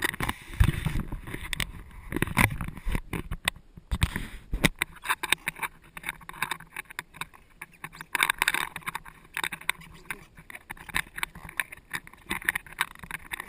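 Small waves lapping and slapping against the hull of a drifting jet ski, with irregular knocks and splashes. No engine is heard.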